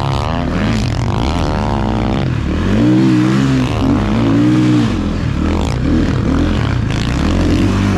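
Snowbike engine revving, its pitch rising and falling again and again as the throttle is worked.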